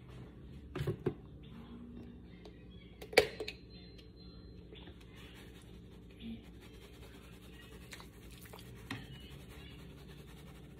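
A large plastic seasoning shaker jar being handled and shaken over raw chicken breasts: faint rattling and scratchy sprinkling, with a few short knocks about a second in and one sharp click about three seconds in.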